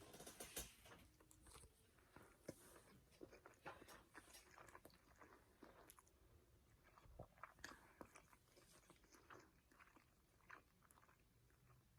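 A person chewing food close to the microphone: faint, irregular wet clicks and smacks of the mouth.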